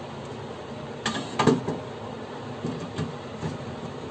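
Hard plastic knocks and clicks of a Brother TN-2365 toner cartridge being fitted into its drum unit. There is a cluster of sharp knocks about a second in, the loudest about halfway through it, then a few lighter taps.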